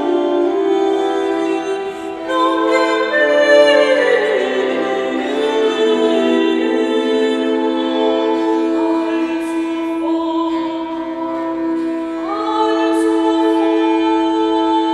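Early-music ensemble playing: a portative organ holds steady sustained chords while a woman sings a melody above it, joined by a bowed viola d'arco. The voice comes in about two seconds in and enters again near the end.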